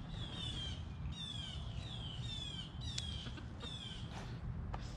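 A songbird calling over and over: short, clear down-slurred notes, about two a second, with a single sharp click about three seconds in.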